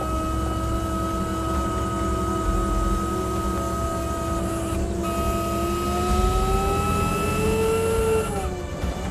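Hydraulic system of the TIV 2 whining as it drives the vehicle's armored side panels, over a low engine rumble. The whine climbs slowly in pitch, dips sharply near the end, then starts climbing again.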